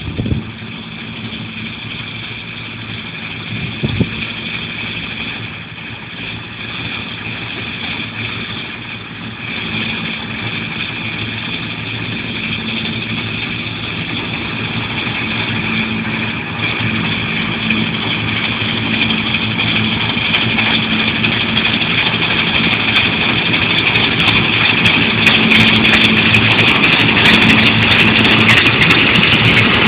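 New Holland 8040 combine harvester running steadily while threshing wheat, its engine and threshing drum making a constant hum and whine that grows steadily louder. A single sharp knock comes about four seconds in.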